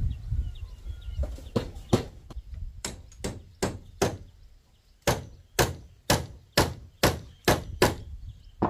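Hammer blows driving nails into the pig barn's roof frame: a run of sharp strikes, about two a second, with a short pause midway.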